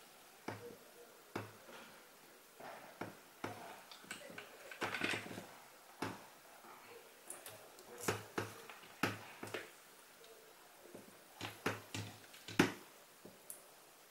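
Handling noise from a camera shoulder strap being threaded through its lug and keeper: scattered small clicks and taps with rustling of the strap webbing, including one sharper click near the end.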